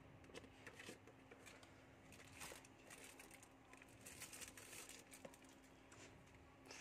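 Faint crinkling and rustling of a thin clear plastic bag being handled, with scattered small clicks.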